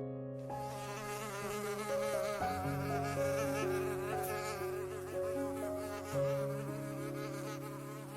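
A flying insect buzzing with a wavering pitch, over soft piano background music.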